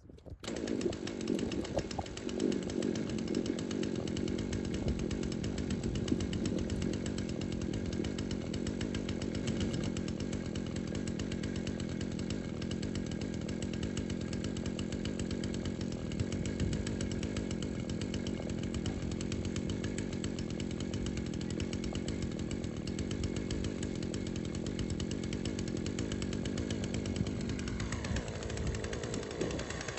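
Two-stroke petrol chainsaw catching on the pull and then running steadily at high speed. Near the end its pitch falls as the throttle comes off and it drops back.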